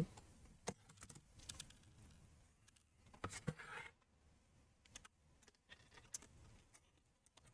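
Faint scattered clicks and a short scrape as the MacBook Air's replacement display hinges are handled and slid into the laptop's base.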